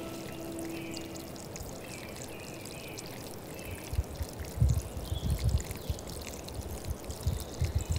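Water pouring in a steady stream from a wooden spout onto mossy rocks, with a few short low rumbles around the middle and near the end.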